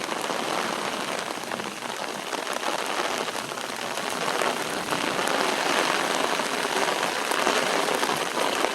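Steady moderate rain, with many individual drops ticking on nearby surfaces; it grows a little heavier about halfway through.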